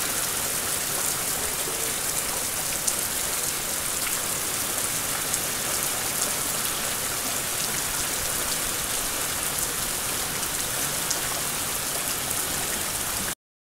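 Thunderstorm rain falling steadily: a dense hiss with scattered sharp ticks of drops striking close by. It cuts off suddenly near the end.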